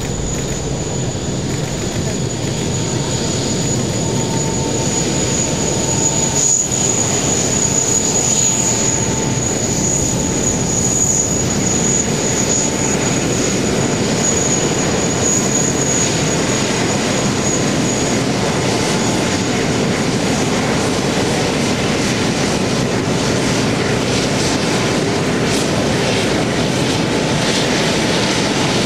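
Airbus A380's four Rolls-Royce Trent 900 jet engines running at taxi power: a steady rumble with a high fan whine that fades out about eighteen seconds in.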